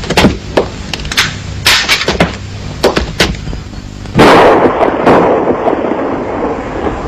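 Film gunfire: a string of sharp pistol shots over the first few seconds, then a much louder blast about four seconds in that dies away over a couple of seconds.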